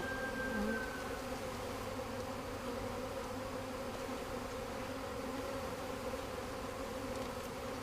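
Many honey bees buzzing together in a steady, even hum, the sound of a package colony being installed into its hive.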